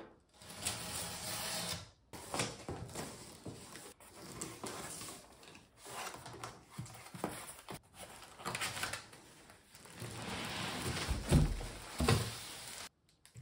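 Packing tape ripped off a cardboard box and the cardboard flaps scraping and rustling as the box is opened. Near the end a plastic-wrapped suitcase is lifted out, with two dull thumps.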